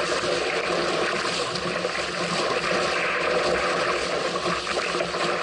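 Water rushing along the hull of a small sailing craft under way in strong wind, with wind buffeting the microphone; a steady hiss and wash without a break.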